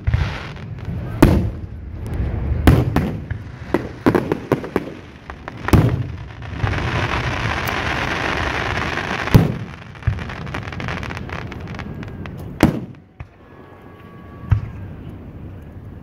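Fireworks display: aerial shells bursting with sharp booms every second or two, with a few seconds of dense, steady hiss midway through.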